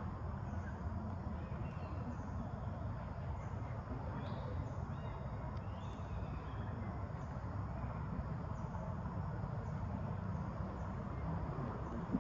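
Steady outdoor background noise, mostly a low rumble, with faint high chirps repeating about once or twice a second.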